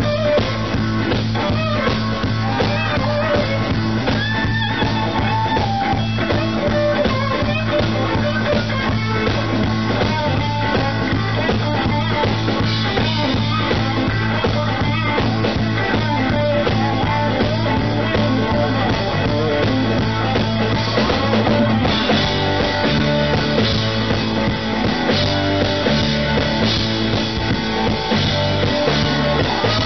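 Live blues-rock band playing: amplified electric guitar over drum kit and bass, with a steady bass line that shifts into a stepping pattern about two-thirds of the way through.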